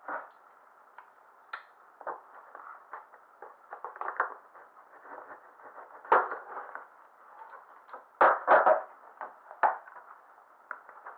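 Rustling, crackling and clicking of plastic packaging being handled: a seal on the side of a box being broken and a clear plastic cover lifted out, with a cluster of sharp crackles about eight to nine seconds in. The recording is thin and tinny.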